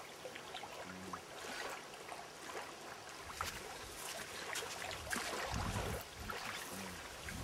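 Small waves lapping and splashing at a lake's edge, a continuous light wash of water with many little splashes. Wind buffets the microphone now and then in the second half.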